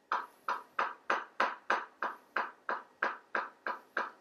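Kitchen knife slicing through a pickled beet and knocking on the cutting board in an even rhythm of about three sharp strokes a second.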